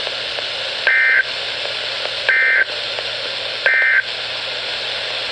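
Emergency Alert System end-of-message data bursts from a NOAA Weather Radio receiver: three short, identical digital tone bursts about a second and a half apart, over steady radio hiss. They mark the end of the flood-warning alert.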